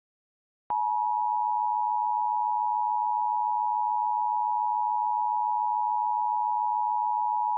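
Emergency Alert System attention signal: the steady two-tone alert (853 and 960 Hz sounded together), starting about a second in and held unbroken. It is the signal that an emergency broadcast message is about to follow.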